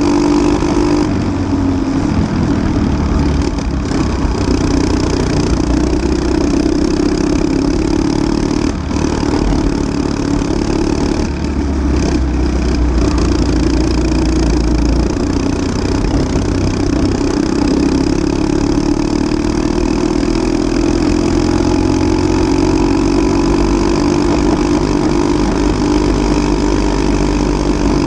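Briggs & Stratton LO206 single-cylinder four-stroke kart engine running at racing speed, heard from on board the kart. The revs drop about a second in, then climb steadily through the second half as the kart accelerates.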